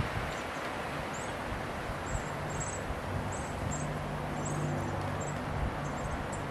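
Outdoor backyard ambience: a steady hiss of distant background noise, with small birds giving many short, high chirps throughout. A low hum swells in the middle and fades again.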